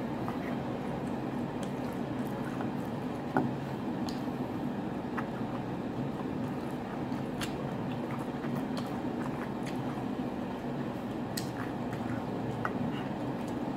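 Close-up chewing and wet mouth sounds of someone eating a seafood ramen meal, with scattered small clicks and one sharper knock about three and a half seconds in, over a steady low hum.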